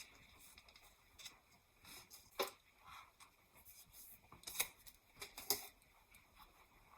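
Small plastic model-kit parts being handled on a work surface: a few faint, sharp clicks with light rustling between them.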